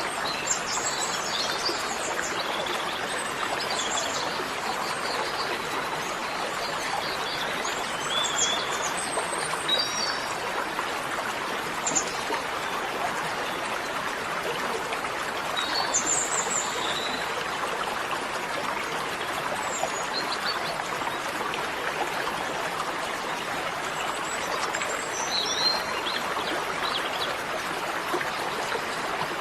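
Steady rushing noise of running water, with short bird chirps now and then.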